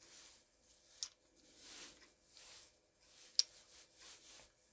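Faint rubbing of a cloth on a Draco AK pistol's bolt carrier and gas piston as it is wiped clean, in soft, uneven strokes. A small click of the parts comes about a second in, and a sharper one about three and a half seconds in.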